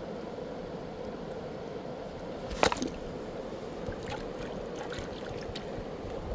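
Shallow river water flowing steadily over cobbles, with one sharp knock about two and a half seconds in and a few fainter clicks over the next few seconds.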